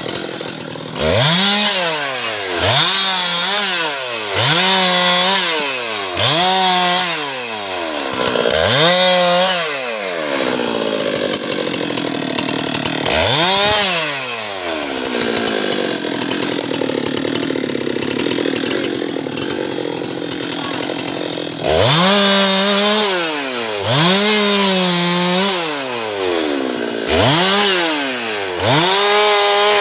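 Husqvarna 390 XP two-stroke chainsaw revving up and dropping back over and over, about once every two seconds. In the middle it runs more steadily at high speed for about ten seconds, then the repeated revving resumes.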